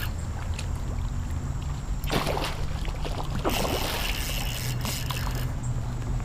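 Steady low wind rumble on the microphone, with a short burst of rushing noise about two seconds in and a longer one from about three and a half to five and a half seconds.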